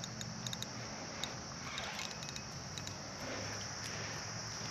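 Spinning reel being worked while playing a hooked carp, giving faint, irregular metallic clicks, over a faint low hum.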